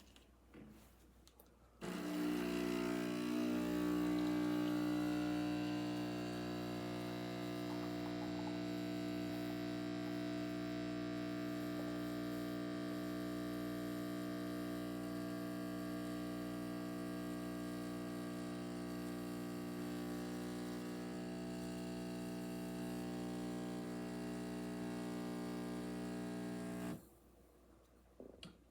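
Neretva 15-bar espresso machine's pump humming steadily as it pulls a double shot. It starts abruptly about two seconds in, is a little louder for the first few seconds, and cuts off suddenly near the end when the shot is done.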